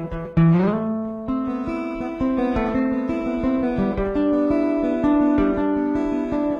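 Guitar music: plucked and strummed notes, with a note sliding up in pitch about half a second in.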